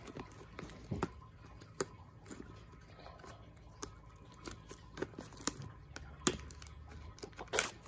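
Plastic shrink-wrap being picked at and torn off a cardboard box by hand: scattered crackles and crinkling clicks, the loudest near the end.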